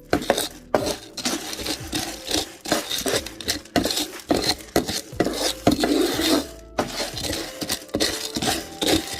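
Rapid, continuous clinking and clattering of kitchen dishes and utensils.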